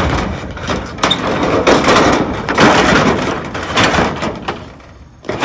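Thin sheet-metal gutter pieces clattering and scraping against each other as they are handled and pulled from a pile. A sharp clank opens it, then continuous rattling that eases off near the end.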